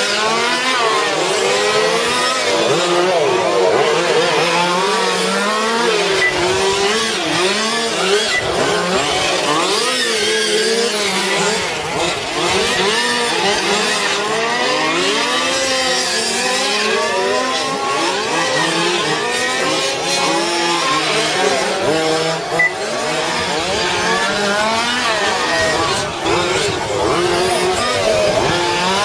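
Several radio-controlled race cars lapping together, their high-pitched motors revving up and down and overlapping.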